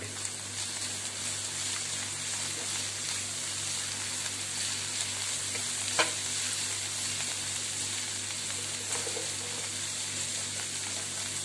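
Shredded cabbage and onions sizzling in hot oil in a frying pan while a slotted metal spatula stirs them, a steady hiss, with one sharp tap of the spatula against the pan about six seconds in.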